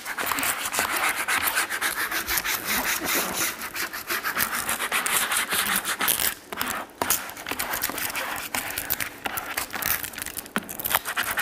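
Plastic squeegee scraping repeatedly over application tape, pressing cut self-adhesive vinyl letters down onto a banner. It is a continuous rasping of quick strokes, with brief breaks about six and seven seconds in.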